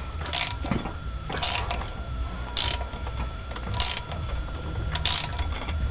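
Hand ratchet clicking in five short strokes, about one a second, as it turns bolts into a stuck brake rotor's threaded holes to press the rotor off the hub.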